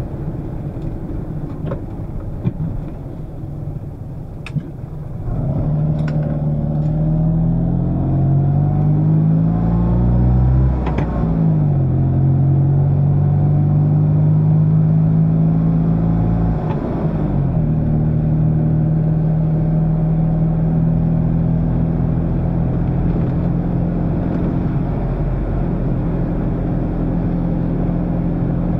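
Fiat 126p's air-cooled two-cylinder engine heard from inside the cabin. About five seconds in it picks up and climbs in pitch under acceleration. It drops back in pitch twice, near the middle and again a few seconds later, as it shifts up, then settles to a steady cruising drone.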